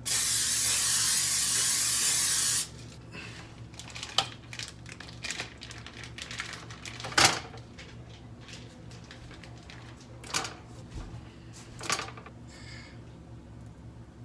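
A loud steady hiss that lasts about two and a half seconds and cuts off sharply, followed by scattered light clicks and knocks.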